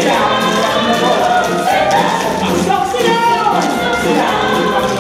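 Musical theatre number: a cast chorus singing over instrumental accompaniment.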